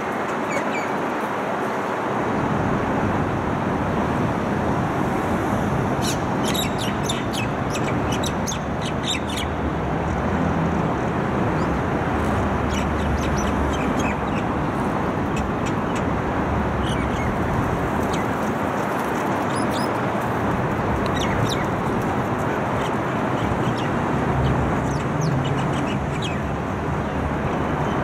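Common myna calling in several runs of rapid, high chattering notes, over a steady din of city traffic.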